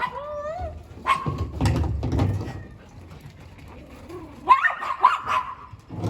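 Dog whimpering, with high gliding whines at the start and again about four and a half seconds in.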